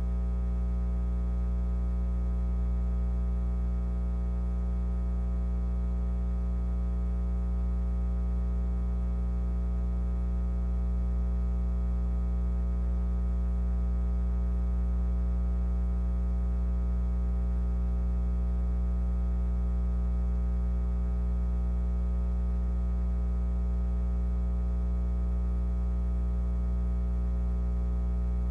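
Steady low electrical hum with a stack of even overtones, unchanging and with no other sound over it.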